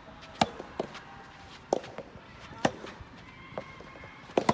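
Rackets striking the ball in a doubles rally: sharp, irregular hits about a second apart, two close together near the end.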